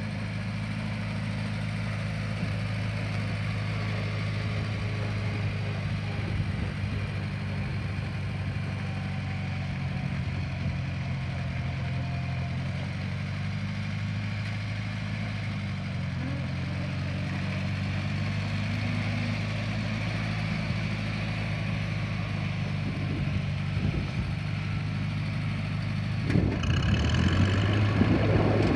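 International Harvester 184 compact tractor's four-cylinder gasoline engine running steadily under way. About 26 seconds in, it grows louder and a rushing noise is added.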